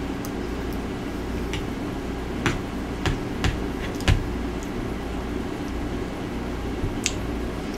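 A person eating close to a microphone: a handful of sharp clicks and smacks, most between about two and a half and four seconds in, over a steady low hum.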